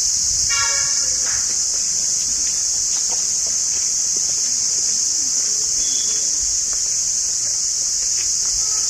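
Steady, loud, high-pitched chorus of insects in the surrounding deodar forest. A short pitched call cuts in about half a second in, and a fainter one near the end.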